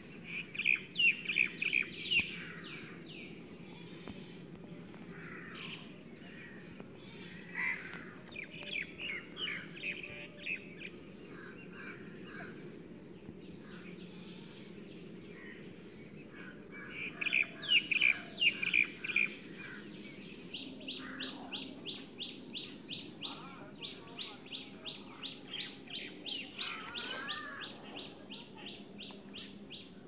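Birds chirping in short bursts of quick calls over a steady high-pitched insect drone. About two-thirds of the way in, a fast, regular ticking begins, about four times a second.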